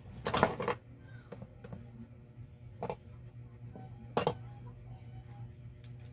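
Handling knocks and clatter as a corded power drill is picked up and moved about on a wooden workbench: a quick cluster of knocks about half a second in, then two single clicks about three and four seconds in, over a low steady hum. The drill's motor is not running.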